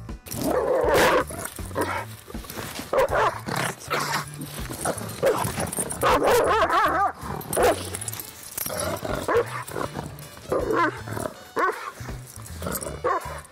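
A dog barking repeatedly, a dozen or so short calls, with one longer wavering call about six seconds in, over background music.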